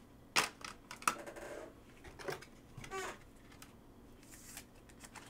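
Plastic clicks and rubbing as a trading card is slid into a clear plastic card holder: two sharp clicks in the first second or so, then light scraping and ticks, with a short squeak about three seconds in.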